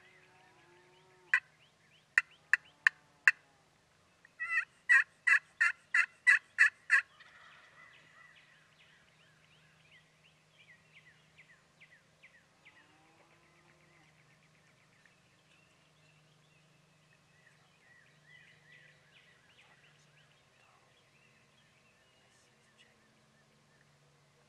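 Turkey calling: single sharp notes in the first few seconds, then a loud, evenly paced run of about nine notes from about four and a half to seven seconds in. After that only faint calling is heard.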